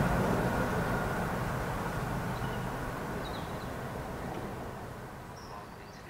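Train rumble fading steadily as it runs away down the line.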